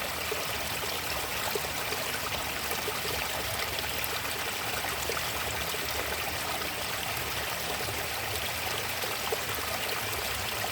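Water flowing steadily in a stream, a continuous rushing and trickling with small splashes through it.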